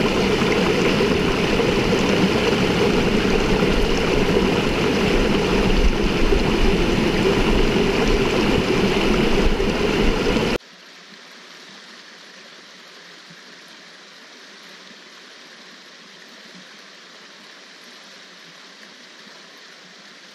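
Steady rushing water of a mountain stream. About ten seconds in it cuts off suddenly, leaving only a faint hiss.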